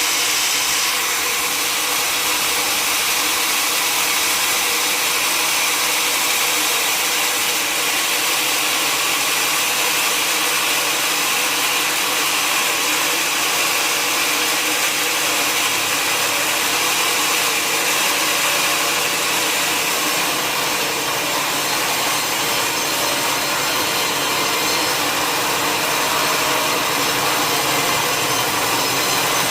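Sawmill saw cutting steadily through a large log, a loud continuous sawing noise without a break.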